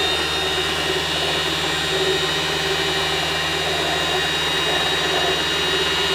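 W6 Wertarbeit N1615 sewing machine's electric motor running at a steady speed to wind thread onto the bobbin: an even whine with a high tone over a low hum.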